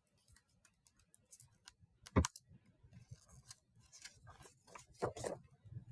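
Faint rustling and clicking of a hardcover picture book's pages as one is turned, with one sharp snap about two seconds in and more rustling near the end.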